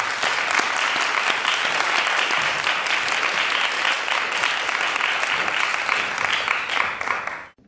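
Audience applauding steadily, a dense crackle of many hands clapping, cut off abruptly near the end.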